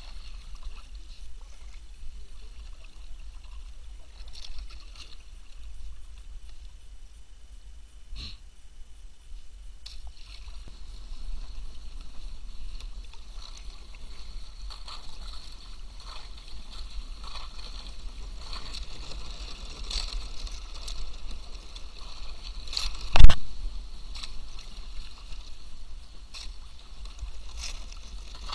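Kayak paddling: the paddle dipping and water splashing and dripping against the hull, with irregular small clicks over a low steady rumble. One sharp loud knock about 23 seconds in, like the paddle striking the kayak.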